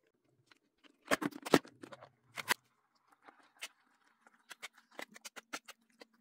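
Sharp plastic clicks from handling the electric lunch box's lid, about a second in and again near two and a half seconds, then a run of light ticks of a fork in the food-filled stainless steel container.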